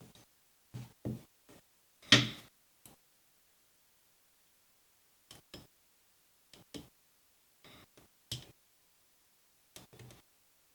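A dozen or so short knocks and clicks of handling in a workshop, spaced irregularly with silence between them. The loudest, sharpest knock comes about two seconds in.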